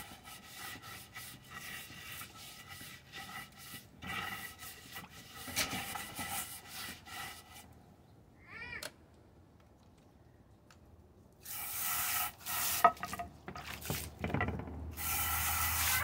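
A scrub brush scrubbing a plastic dish in quick back-and-forth strokes, with a faint squeak of bristles on plastic. About 9 s in, a short squeak rises and falls in pitch. From about 11.5 s a hose spray nozzle sprays water into the dish in a few spurts.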